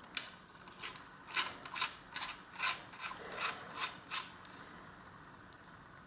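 Bottom bracket lock ring being threaded by hand onto the adjustable cup: a run of about a dozen short metal-on-metal scraping strokes over roughly four seconds, then it stops.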